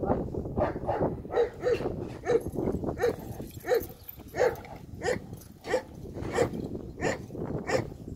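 Short, sharp animal calls repeating in an even rhythm, about three every two seconds.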